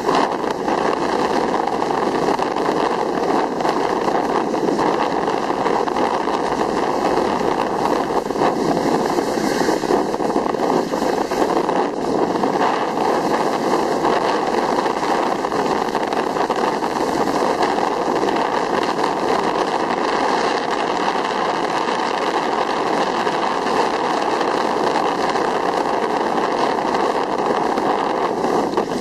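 Steady rushing noise of skis sliding over packed snow, mixed with wind buffeting the microphone during a downhill run.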